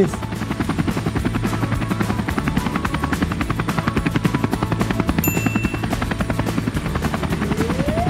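Helicopter rotor sound, a rapid steady chop. A brief high beep comes about five seconds in, and a tone rises in pitch near the end.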